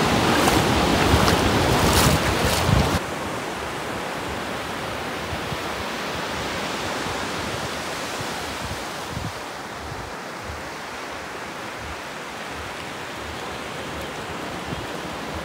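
Ocean surf washing in over a flat sandy beach, loud and close at first, then cutting abruptly about three seconds in to a quieter, steady wash of surf.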